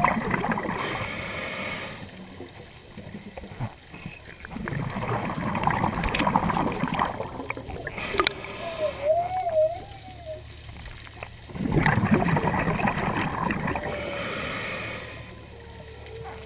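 Humpback whale song heard underwater: short moans that waver up and down in pitch around the middle, and a long moan that slowly falls in pitch near the end. Over it, the louder breathing of a scuba diver's regulator comes in surges every few seconds, a hiss of inhalation and the rumble of exhaled bubbles.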